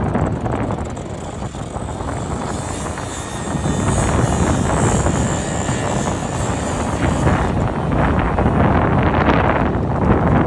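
Wind buffeting the microphone over the steady drone of an engine, with a high hiss rising for a few seconds in the middle.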